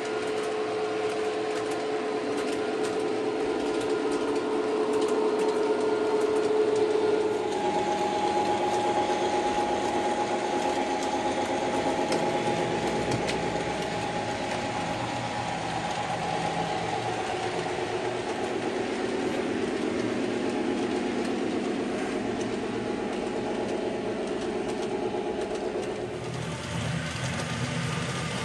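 OO gauge model trains running round the layout: a steady whirring whine from the locomotives' motors with the rattle of wheels on track. The whine shifts in pitch about a third of the way in and again near the end.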